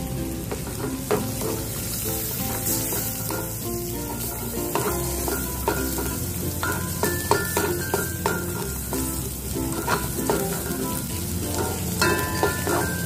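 An egg sizzling as it fries in butter in a metal wok, with a spatula repeatedly scraping and knocking against the wok as the egg is broken up and stirred.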